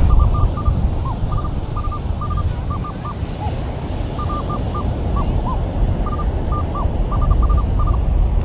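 Minelab Manticore metal detector giving short, high beeps in quick clusters of two to four, over a steady low rumble of wind and surf.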